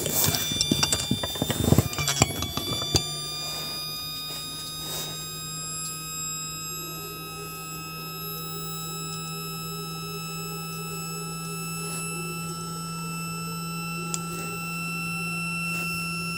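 Hard drive's brushless DC spindle motor, run from a makeshift circuit without a proper controller, whining steadily: a high-pitched tone with overtones over a low hum, rising slightly at first and then holding. Clicks and handling knocks come in the first three seconds.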